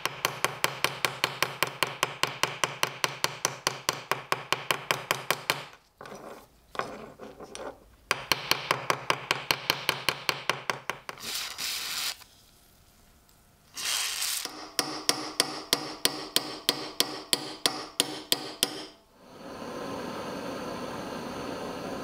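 A small hammer tapping rapidly and evenly on a small steel buckle part, the taps coming in long runs with short pauses between them. Near the end the tapping gives way to the steady hiss of a butane gas torch.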